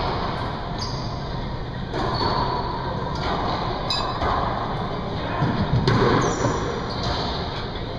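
Racquetball rally: the hollow rubber ball smacks off racquet strings and the court walls every second or two, each hit echoing in the enclosed court.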